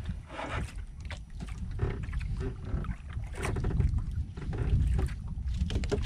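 Low, steady rumble of wind and water around a small boat at sea, with scattered light knocks.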